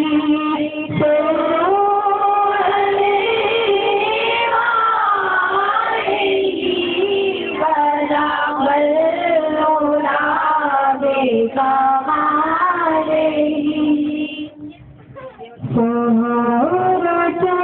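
Music with a singing voice holding long, sliding notes over an accompaniment. The sound briefly drops away about three quarters of the way through, then resumes.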